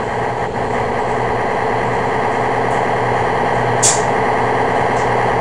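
Boat engine running with a steady drone, with a short hiss about four seconds in.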